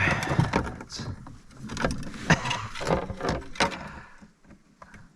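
Irregular knocks, clatter and rustling of fishing gear and a landed fish against a kayak hull, busiest for about four seconds and then thinning to a few faint ticks.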